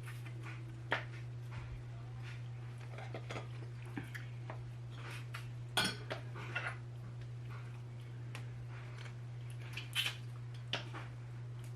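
Scattered clicks and clinks of utensils, plates and lobster shells as boiled lobsters are picked apart and eaten, over a steady low hum.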